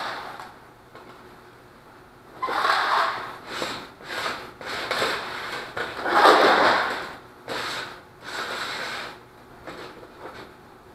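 A fish tape being pushed by hand through a small hole into an ultralight's wing, scraping and sliding inside the wing in a series of separate pushes, each about a second long. The loudest push comes about six seconds in.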